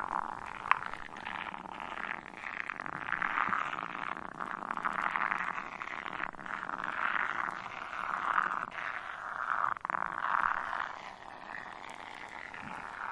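Shaving-cream foam being squeezed and worked close to a binaural microphone, a dense fizzing crackle that swells and fades every second or two.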